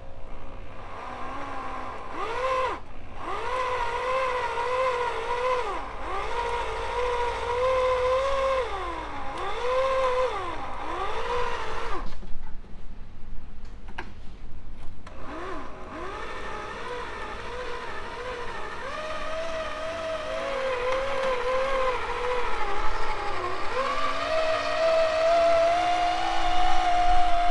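Electric chain hoist motor whining as it lifts a big-block V8 out of an engine bay, its pitch wavering up and down under the load. It stops for a few seconds about halfway, then starts again and runs steadier and higher near the end.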